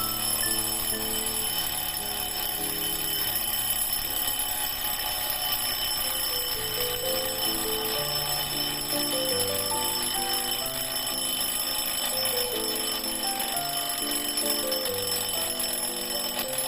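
Restored wind-up mechanical alarm clock ringing: its hammer strikes the bell rapidly in one continuous metallic ring. Background music plays underneath.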